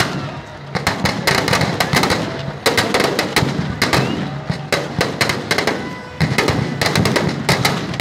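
Firecrackers packed inside a burning Ravana effigy going off in rapid, irregular strings of sharp cracks and bangs.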